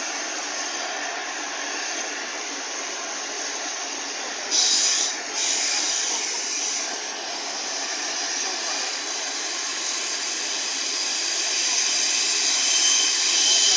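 Container freight train's wagons passing over a railway bridge: a steady clatter and hiss of wheels on rail. A brief louder burst of hiss comes about four and a half seconds in, and the noise grows slowly louder toward the end.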